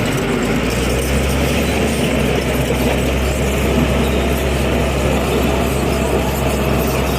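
Bulldozer's heavy diesel engine running steadily, with a constant low engine note under dense mechanical noise.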